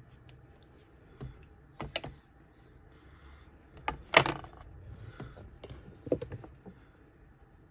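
Scattered light clicks and knocks of a plastic painting board being handled and turned on a tabletop, the loudest clatter about four seconds in.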